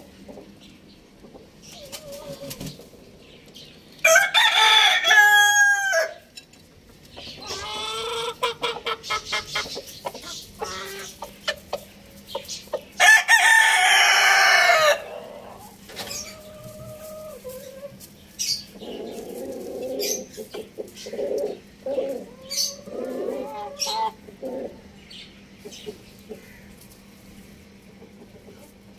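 A rooster crowing loudly twice, about four and thirteen seconds in, each crow lasting about two seconds, with hens clucking in shorter, softer calls between and after.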